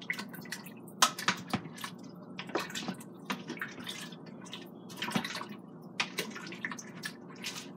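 Wooden spoon stirring soup in a stainless steel inner pot: liquid sloshing, with irregular knocks and scrapes of the spoon against the pot, the sharpest about a second in and about five seconds in.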